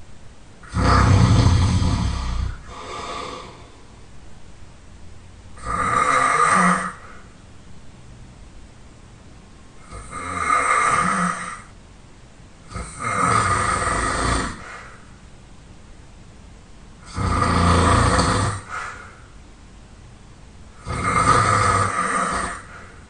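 A person snoring really loud: six long snores a few seconds apart.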